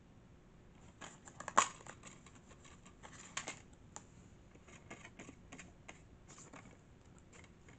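Plastic DVD case being handled and opened: scattered small clicks and rattles of the plastic, with a sharp click about one and a half seconds in and another cluster a little past three seconds.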